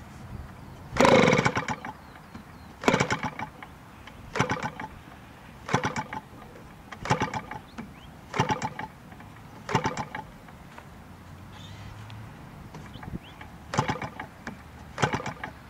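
3W-55 two-stroke petrol engine of a giant-scale model Spitfire being hand-flipped by the propeller, firing in about nine short bursts that die away each time without catching. It is hard-starting after standing unused for a long while.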